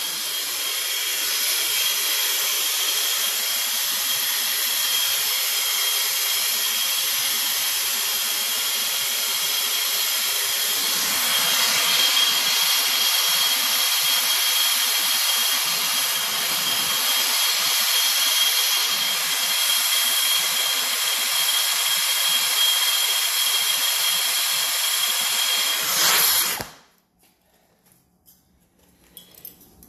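Air-acetylene turbo torch with a big tip burning with a steady, loud hiss as it heats a copper pipe fitting for soldering. The flame cuts off suddenly about 26 seconds in.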